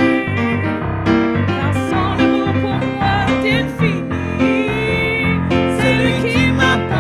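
Keyboard playing in a piano sound, steady chords under a melody line, with no sung words.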